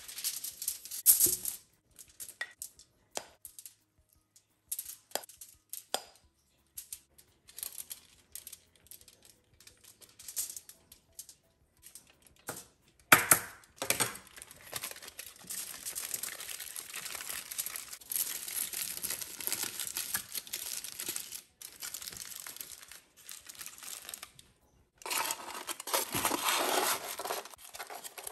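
Aluminium foil being handled: short bursts of crinkling and rustling at first, then long stretches of steady crinkling about halfway through and again near the end.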